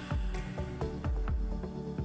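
Background music with a steady beat of low thumps over held chords.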